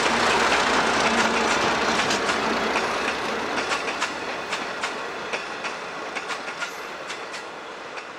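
Train carriages rolling past, their wheels clicking over rail joints, with the clatter fading steadily as the train moves away.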